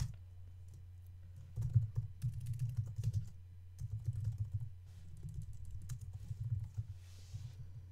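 Typing on a computer keyboard in several short bursts of rapid key clicks, over a steady low hum.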